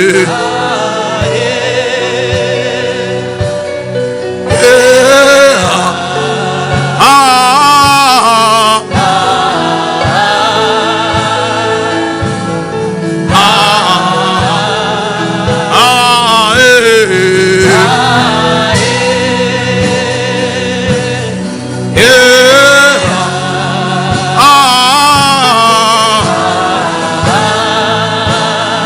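Gospel music with singing voices over sustained chords and a soft steady beat.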